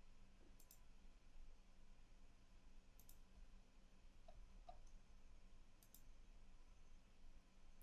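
Faint computer mouse clicks, three of them a few seconds apart, each a quick press and release, over near silence.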